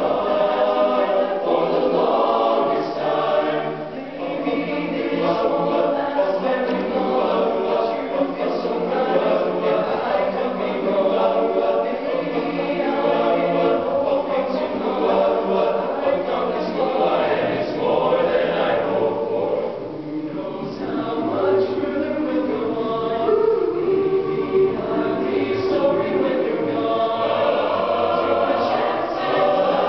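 Male youth choir singing a cappella in several-part harmony.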